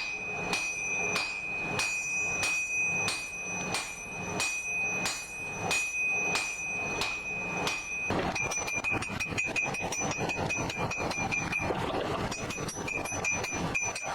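Hammer blows on hot steel over an anvil, about two a second, with the anvil ringing steadily between strikes; about eight seconds in the blows become quicker and less even.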